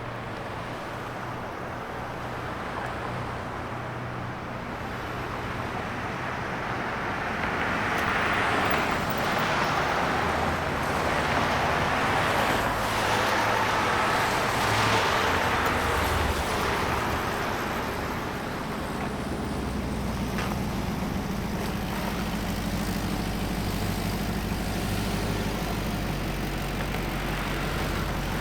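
Road traffic with cars passing by: a steady rush of tyre and engine noise that swells as vehicles pass through the middle, then settles, with a low engine hum later on.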